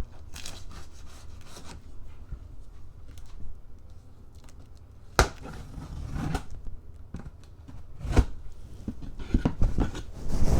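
Cardboard meal-kit box being opened and unpacked: tearing and rustling of packaging, with two sharp knocks about five and eight seconds in.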